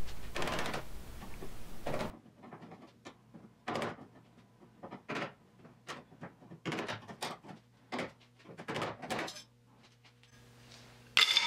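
Hammer blows on a chisel against the welded-on steel patch in a Triumph TR6's rear fender, knocking it loose: a run of sharp metal knocks at an uneven pace. Near the end comes one louder metallic clang that rings on briefly.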